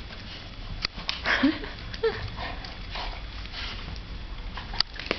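A flat-coated retriever and a Thai Ridgeback play-fighting: snuffling, breathing and mouthing noises, with a short rising grunt about a second and a half in and a sharp click near the end.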